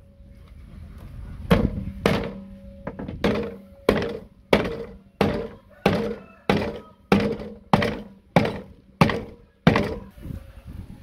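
Heavy wooden club pounding a dead water snake on a round wooden chopping board: about a dozen dull, sharp thuds at an even pace of roughly one and a half a second. The thuds start about a second and a half in and stop near the end.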